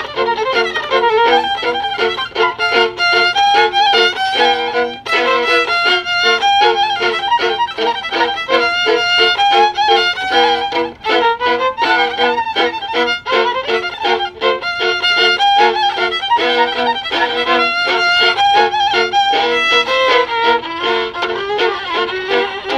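Two violins playing a duet, a melody over an accompaniment of short, repeated bowed notes.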